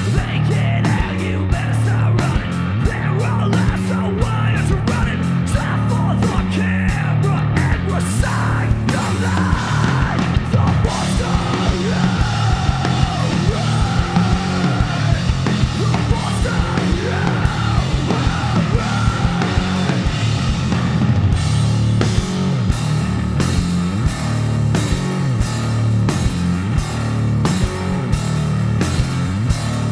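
Live rock band playing: electric guitar, bass and drum kit. A steady drum beat leads for the first few seconds, and a sung vocal comes in about nine seconds in.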